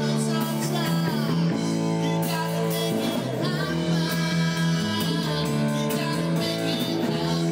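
A rock band playing: drums with cymbal hits on a Premier drum kit, under electric guitar or bass and held chords.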